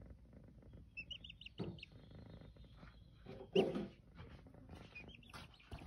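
Baby chick peeping in short, high cheeps: a quick run of them about a second in and a few more near the end, over the kittens' low purring. A brief louder noise comes about three and a half seconds in.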